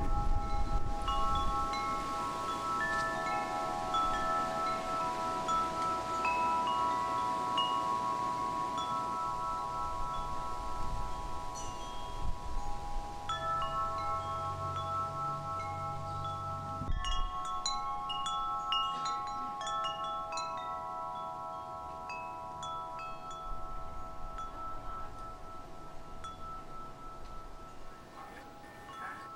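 Wind chimes ringing: several notes struck again and again and left to ring, overlapping one another. The ringing breaks off sharply about seventeen seconds in and picks up again at once, then grows slowly fainter toward the end.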